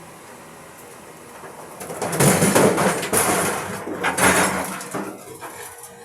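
Boulders tipped from an excavator bucket crashing and scraping into a steel dump truck bed, in two loud spells from about two seconds in, over a steady low engine hum.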